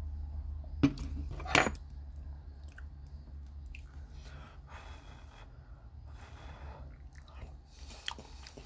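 Close-up eating sounds: two sharp clinks of a metal fork on a plate, about a second and a second and a half in, then soft chewing of a mouthful of food. A steady low hum sits underneath.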